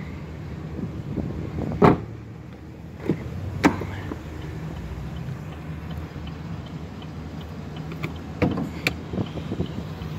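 A few sharp knocks and thumps from the pickup's door and cab interior being handled, over a steady low hum. The loudest come about two seconds in and again a second and a half later, with a cluster of smaller knocks near the end.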